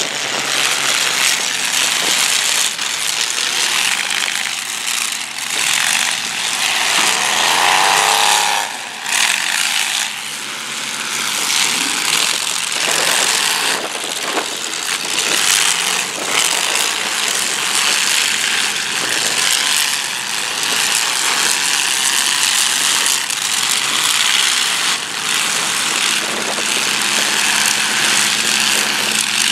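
Several demolition derby cars' engines revving and running hard, one swelling up and back down about eight seconds in, with bangs of car bodies slamming into each other now and then.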